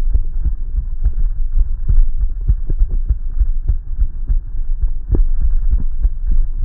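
Stethoscope recording of heartbeats whose first heart sound (S1) varies in loudness from beat to beat, with the thumps coming at uneven intervals over a low hum. A variable S1 like this is typical of atrial fibrillation.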